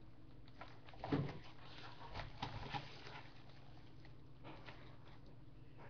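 Faint handling noises: a soft knock about a second in and a few light clicks after it, over a steady low hum.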